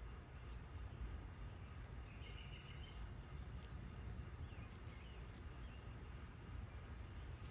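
Steady low background rumble with a few faint bird chirps, the clearest a short chirping phrase about two seconds in, and a few brief chirps and light ticks after it.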